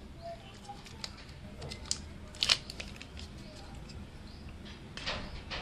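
Handling noises as the charger's adapter, connector and cable are picked up and moved: a few scattered light clicks and rustles, the clearest about two and a half seconds in and near the end, over a low steady hum.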